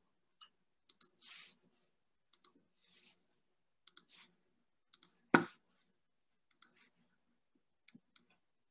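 Faint clicking at a computer: short double clicks about every second and a half, with one louder knock about five seconds in and soft rustles between.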